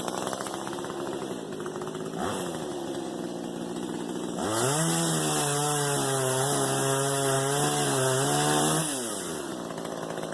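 Small two-stroke top-handle chainsaw idling, blipped briefly about two seconds in, then held at full throttle for about four seconds, its pitch sagging slightly under load as it cuts, before dropping back to idle.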